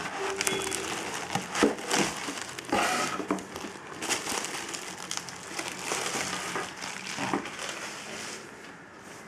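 Plastic bubble wrap crinkling and rustling as it is handled and unwrapped, with many small crackles, dying down near the end.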